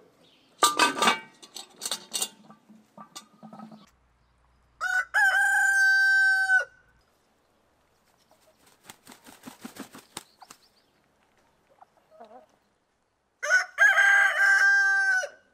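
Rooster crowing twice, about five seconds in and again near the end, each crow lasting about two seconds.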